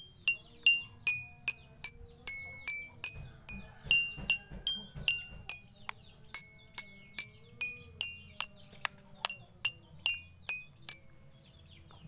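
Toy xylophone's colored bars struck one at a time with a plastic mallet: about thirty ringing notes at a few per second, the pitch stepping up and down from bar to bar, stopping near the end.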